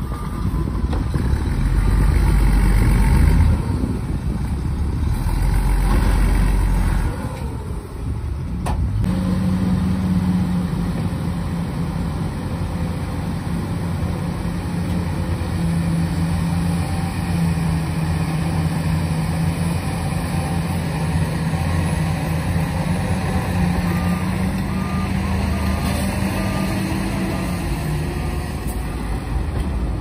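Dump truck diesel engine running at raised, steady revs to drive the hydraulic tipping hoist while soil slides out of the raised bed, with two heavy low rumbles in the first seven seconds and a sharp knock about nine seconds in. Faint reversing beeps sound near the end.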